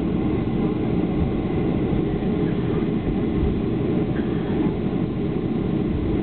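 Cabin noise inside a Boeing 737-400 taxiing, its CFM56-3 turbofans at low taxi power: a steady low rumble.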